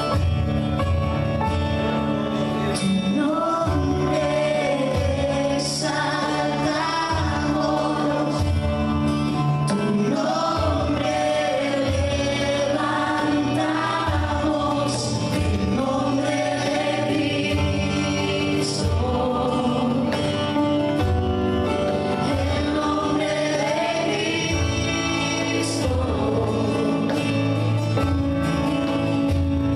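Live worship band playing and singing a Spanish-language worship song: voices over strummed acoustic guitars, keyboard and a cajón keeping a steady beat.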